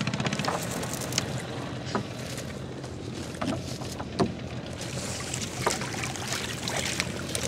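A small boat's engine running steadily at low speed, with scattered knocks and splashes.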